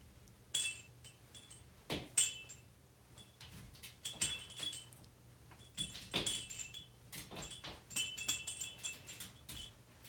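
A small cowbell toy clinking and ringing in short, irregular bursts as an African grey parrot shakes and handles it, with a few sharp knocks among them.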